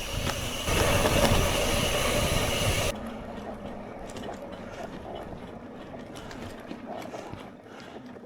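Wind and road noise from riding a bicycle. It is loud for about the first three seconds, then changes abruptly to a quieter rush with light scattered ticking.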